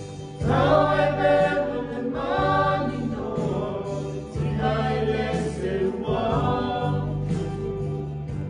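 A choir singing a slow song in long held phrases over a steady low accompaniment.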